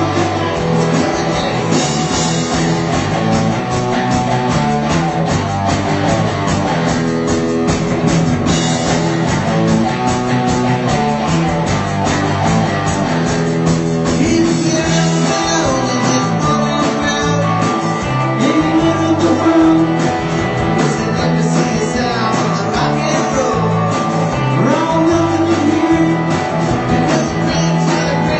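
A song: guitar-led music with a voice singing.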